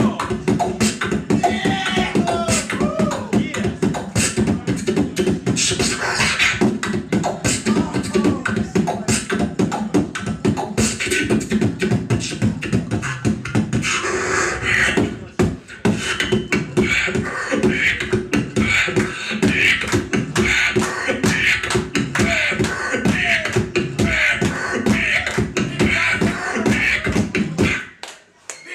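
Beatboxer performing a fast, dense vocal beat: rapid mouth-made percussive clicks and hits over a steady low tone, stopping abruptly near the end.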